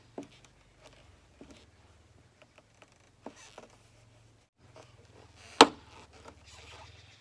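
Screwdriver prying at the plastic lower grille of an R53 Mini Cooper's bumper: scattered small clicks and scrapes, and one loud sharp snap about five and a half seconds in as a retaining clip pops.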